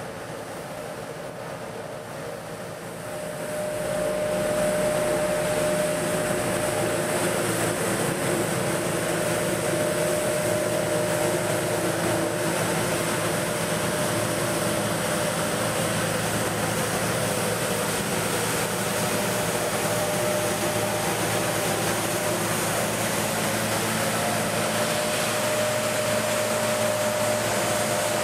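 Heavy road-works machinery running steadily: a TS 6000 road sweeper working behind an asphalt milling machine, engine noise with a steady whine over it, growing louder about three to four seconds in.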